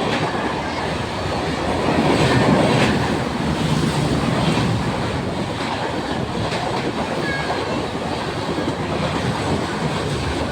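The Ranakpur Express passenger train passing close at speed, its wheels on the rails making a continuous heavy rumble with scattered sharp clacks over rail joints. It is loudest about two to three seconds in.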